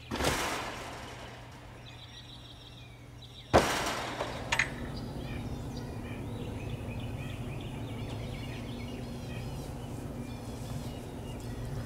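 Outdoor ambience of birds chirping over a steady low hum. A sudden loud noise just after the start dies away over about a second, and a sharp knock comes about three and a half seconds in, followed by two light clicks.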